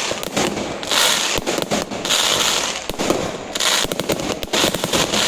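Aerial fireworks crackling: dense runs of sharp pops with a hissing, sizzling swell about once a second.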